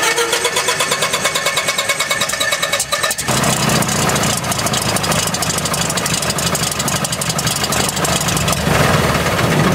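Cessna 152's Lycoming O-235 four-cylinder aircraft engine being started: a rapid pulsing chatter as the starter cranks it, then about three seconds in the engine catches and runs steadily with a deeper, fuller sound.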